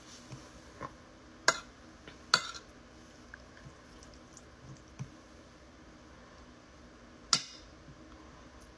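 Spoon clinking and scraping against a ceramic plate of curry and rice. There are three sharp clinks, about a second and a half in, a second later, and near the end, with a few fainter taps between them.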